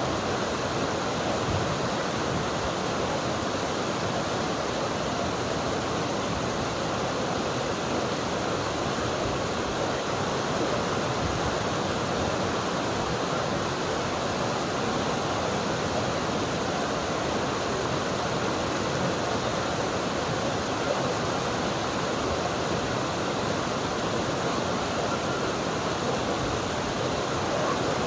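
River water flowing over rocks: a steady, unbroken rush.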